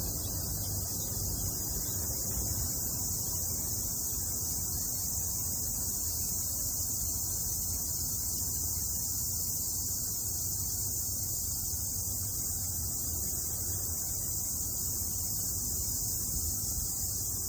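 Steady outdoor background: an even high-pitched hiss over a low rumble, with no distinct events.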